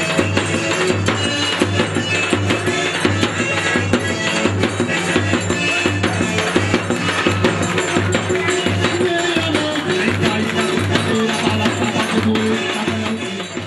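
Upbeat festa junina dance music for a quadrilha, driven by quick rattling percussion and a drum over a steady bass, fading out near the end.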